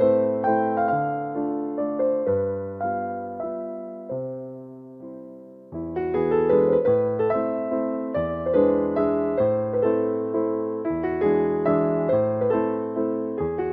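Background piano music, gentle notes that fade almost to quiet about five seconds in before the playing picks up again, fuller and louder.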